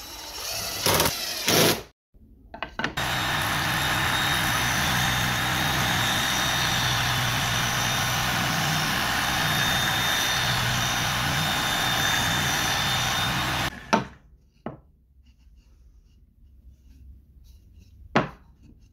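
Cordless impact driver driving a screw into plywood in a short burst. Then the sanding drum of a homemade drill-press spindle sander spins for about ten seconds with a steady whine, sanding the inside edge of a round hole cut in plywood, and stops suddenly. Two short knocks follow near the end.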